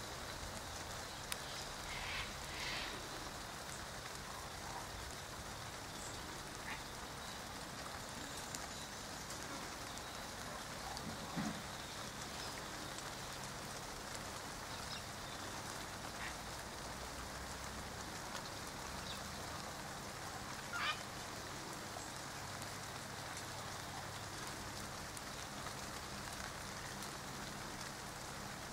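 Light rain falling steadily, a soft even patter on leaves and ground, with a few brief isolated sounds standing out now and then.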